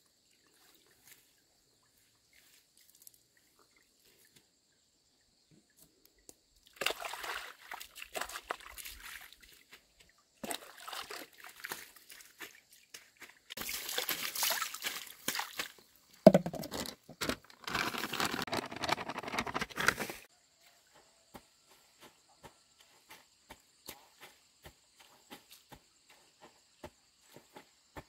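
Water poured from a basin splashing and sloshing over wet mesh netting being trodden clean on a concrete slab, in several bursts that begin after a quiet stretch and stop about two-thirds of the way through.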